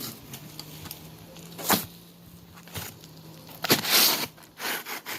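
Roofing work on a shingle roof: a sharp crack about a second and a half in, then a louder, longer scraping burst near the end, with a few more short knocks after it, over a faint steady low hum.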